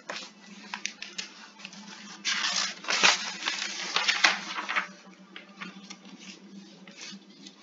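Computer keyboard being typed on: irregular key clicks, coming thickest from about two to five seconds in, then thinning out.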